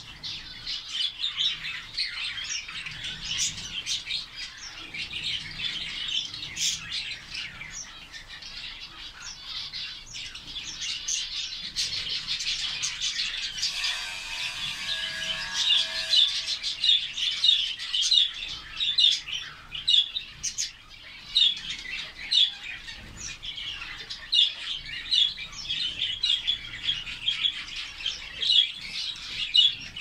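Flock of zebra finches calling: many short, overlapping chirps, busier and louder from about halfway, with wings fluttering as birds bathe in a water tray.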